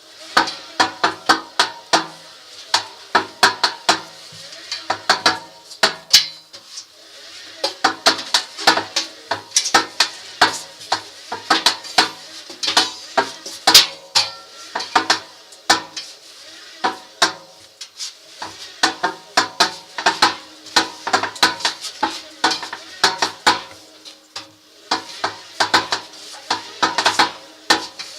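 Washing machine drum turned by hand, giving a dense, irregular metallic clatter and clicking with a faint ringing note: the sign of defective drum bearings.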